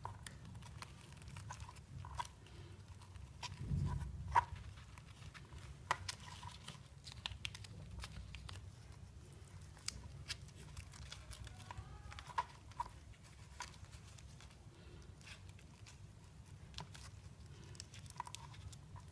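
Faint, scattered clicks and taps of utensils against a bowl, with a few louder knocks, over a low steady hum, as the nem filling of meat, egg, noodles and onion is seasoned and mixed.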